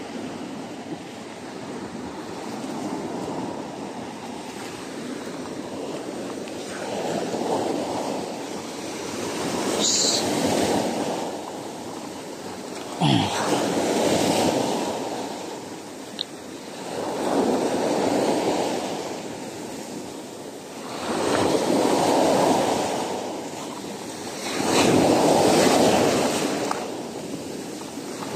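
Sea waves breaking and washing up a sandy shore, surging in and ebbing away every few seconds. A couple of short sharp knocks sound about ten and thirteen seconds in.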